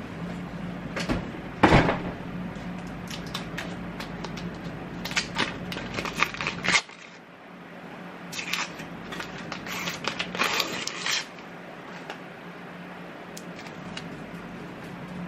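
Kitchen handling noises: knocks and clatter as things are moved about and set down, the loudest a sharp knock just under two seconds in. A low steady hum cuts off about seven seconds in.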